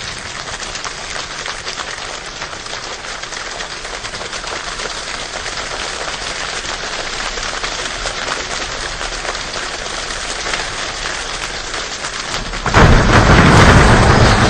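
Steady rain pattering, a dense hiss of drop ticks that slowly grows louder. Near the end a sudden, much louder surge comes in that reaches down into deep low rumble.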